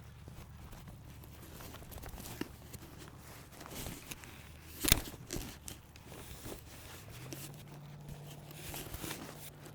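Footsteps with irregular crunching and crackling, and one sharp knock about five seconds in; a low steady hum sets in about seven seconds in.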